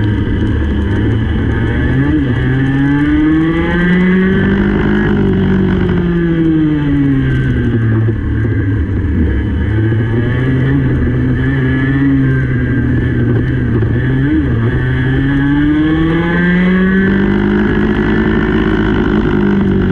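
Racing kart engine heard onboard at full race pace, its pitch climbing as it revs out along the straights and dropping back off into the corners, several times over.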